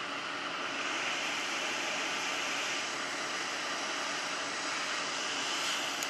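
Hot air rework station blowing a steady rush of air from its handpiece, used without a nozzle, heating a phone motherboard's metal shield to loosen its solder for removal.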